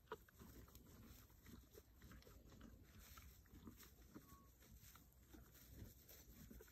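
Foal chewing lucerne hay, a faint, irregular crunching.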